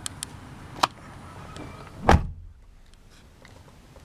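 Car door of a 2002 Proton Perdana: a few light clicks and one sharp click from the door, then about two seconds in the door thuds shut. The outside noise drops away as the cabin closes.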